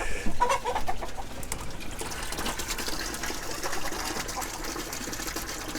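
Water running into a tank as it is refilled, a steady hiss from about two seconds in, after a few knocks of handling.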